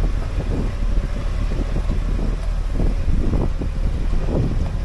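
Jeep driving a rough dirt trail: a steady low engine and drivetrain rumble, with irregular bumps and rattles as it jolts over the ground.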